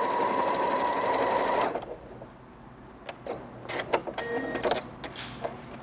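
Janome 5300 computerized sewing machine running steadily as it stitches a serpentine stitch, stopping about a second and a half in. A few clicks and short high beeps follow.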